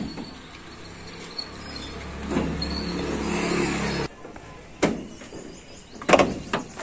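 Small goods truck's diesel engine running steadily and growing louder, then stopping abruptly about four seconds in. A few sharp knocks and clunks from the truck's cab door follow, one about a second later and a quick cluster near the end.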